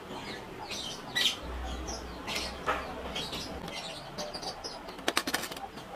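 Small birds chirping repeatedly with short high calls, with a quick run of sharp clicks about five seconds in.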